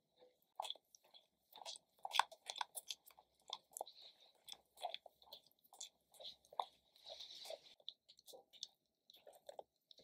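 Spatula stirring thickening custard cream in a stainless steel saucepan: soft, irregular wet squelches and scrapes against the pan.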